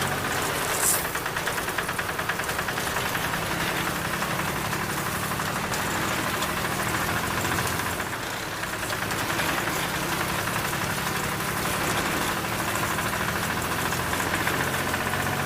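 Engine running steadily at idle with a fast, even knocking chug, like a small diesel.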